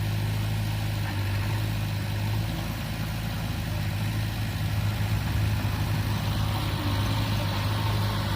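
Diesel engine of a JCB 3DX backhoe loader running steadily with a deep, even hum.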